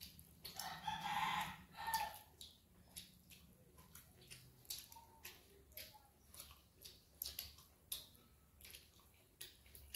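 Faint eating-by-hand sounds: fingers squelching through watery rice in a steel bowl and mouths chewing, heard as a string of small irregular clicks and squishes. There is a louder, brief noisy sound in the first two seconds.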